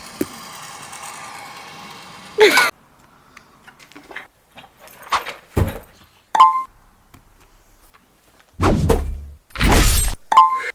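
A string of separate thumps and short noisy bursts, the two loudest and longest near the end.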